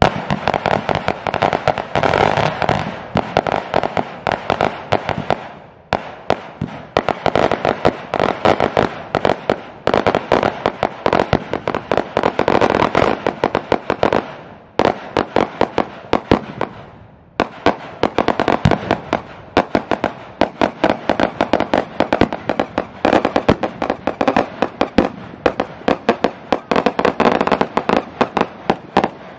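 Strings of firecrackers hung beneath a tethered hot-air balloon going off in a continuous rapid crackle of bangs, with brief lulls about six seconds in and again around fifteen to seventeen seconds.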